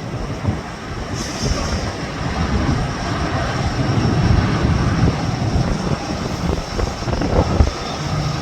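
Aircraft engines running, with a high steady whine that comes in about a second in, over gusty wind buffeting the microphone.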